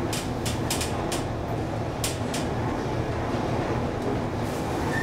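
1977 KONE inclined elevator cabin running down its inclined track with a steady rumble and hum. Sharp clicks and rattles come several times in the first two seconds and once more near the end.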